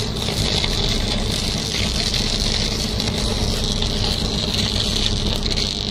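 High-voltage electrical arc burning steadily, a loud buzzing hum with constant crackle and hiss.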